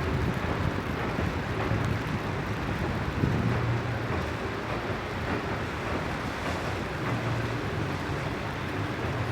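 Steady outdoor riverside ambience: wind on the microphone over a continuous low rumble, like distant engines, with no sharp events.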